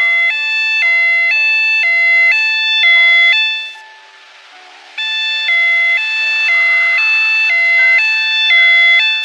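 A simple electronic melody of clear tones, the notes stepping up and down about three times a second. The phrase plays, breaks off for about a second near the middle, then plays again.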